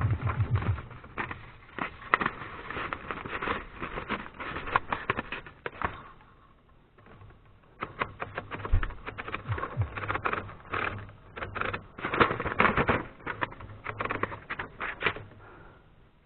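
Remington Noiseless No. 6 typewriter mechanism being worked, giving runs of quick, sharp clicks and clacks. There is a short lull about six seconds in.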